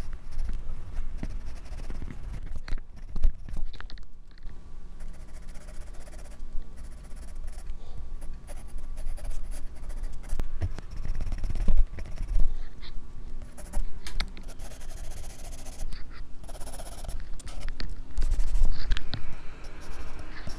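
Pencil scratching on paper in quick, irregular strokes, heard close up through a clip-on microphone worn at the drawing wrist, with low rubbing and knocks from the microphone moving with the hand.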